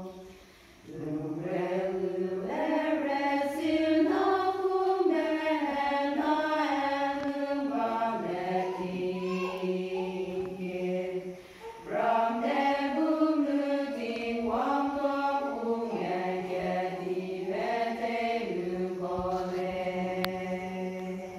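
Women's choir singing together in long held notes, with short breath breaks about a second in and midway; the final held note ends near the close.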